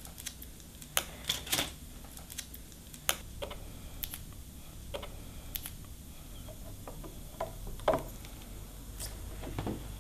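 Irregular clicks and knocks of a clear plastic jig plate and an air-powered sanding tool being handled and set down onto a base plate, the loudest about a second in and near eight seconds.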